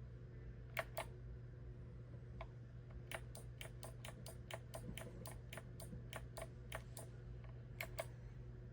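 Keys of a mechanical keyboard clicking: two presses about a second in, a quick run of keystrokes at about four a second in the middle, and two more presses near the end, over a steady low hum.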